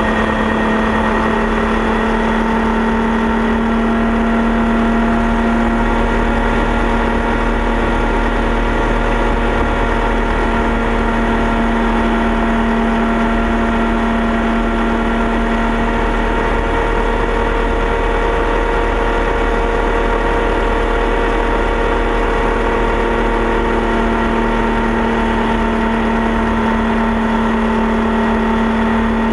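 Turbocharged Mazda two-rotor rotary engine and propeller of a homebuilt aircraft running steadily in flight, a loud drone that holds one pitch throughout, heard inside the cockpit.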